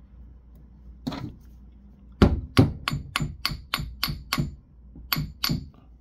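Two Stanley steel claw hammers struck face to face, flattening a paperclip pinched between them: sharp metallic clinks, one about a second in, then a quick run of about nine at roughly four a second, and two more near the end.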